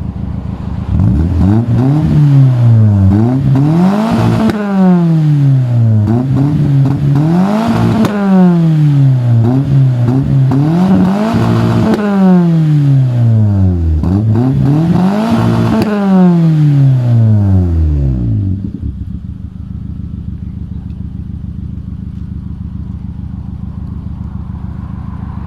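Engine revved up and back down again and again, about five times, then dropping to a steady idle near the end. The owner says the engine is coughing and misfiring and is trying to track down the cause.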